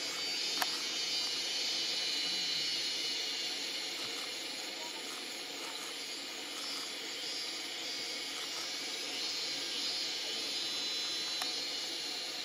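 Steady, high-pitched insect chorus, a continuous shimmering hiss, with a single faint click about half a second in.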